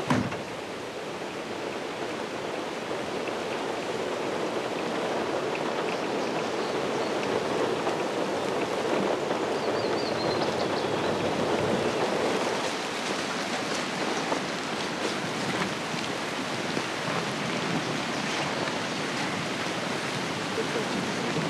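Steady rushing water noise, with a short sharp knock at the very start and a few faint high chirps about ten seconds in.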